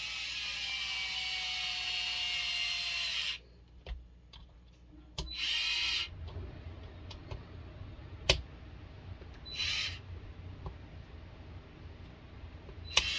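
Small electric screwdriver driving screws into plastic RC truck wheel parts: one run of about three seconds whose pitch sags as the screw draws tight, then three short bursts, with small handling clicks between.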